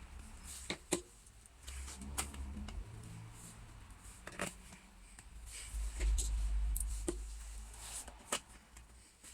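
Small screws being driven back into a laptop's case with a screwdriver: scattered sharp clicks and taps of metal and plastic, with low bumps from handling the laptop.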